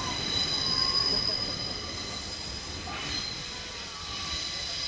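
Class 144 Pacer, a four-wheeled diesel railbus, running past on the rails, its wheels squealing in several steady high tones over the rumble of the train.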